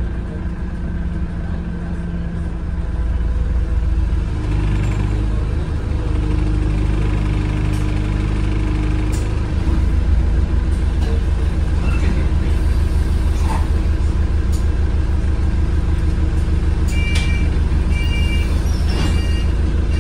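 Diesel engine of a London single-deck bus heard from inside the saloon, a steady low drone that grows louder about three seconds in and again about halfway as the bus gathers speed. Near the end, a run of short two-tone electronic beeps repeats about once a second.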